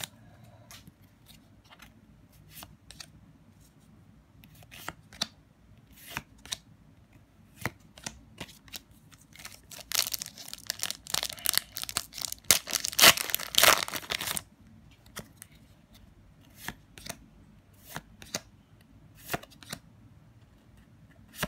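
A foil trading-card booster pack crinkling and tearing open, the loudest stretch of a few seconds starting about halfway through. Before and after it come scattered light clicks and flicks of cards being handled and slid against each other.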